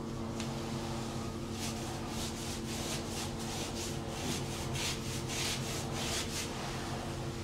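Paint brush scrubbing resin onto a closed-cell foam bulkhead in quick back-and-forth strokes, about three a second, with a hiss on each stroke. A steady low hum runs underneath.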